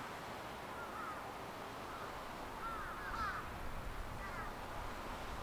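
Short, arching bird calls repeat every second or so over a steady background hiss, with a louder cluster of calls about three seconds in.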